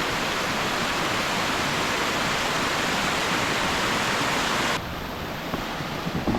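Steady rushing of flowing water, a loud even hiss that cuts off abruptly about five seconds in, leaving fainter outdoor noise.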